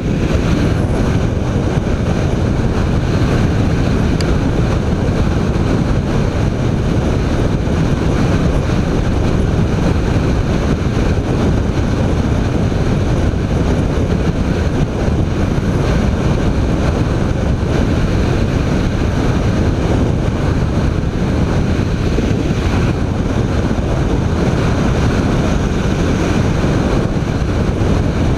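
Steady wind rushing over the microphone of a BMW K1300 R motorcycle riding at a constant speed, with the bike's engine and road noise running underneath, without a clear rise or fall in revs.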